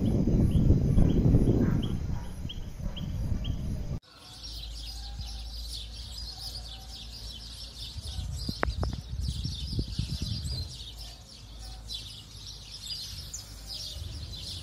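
Birds chirping and calling over a steady low background, with a few sharp knocks about halfway through. In the first few seconds, before a cut, a loud low rumble with faint regular ticking above it.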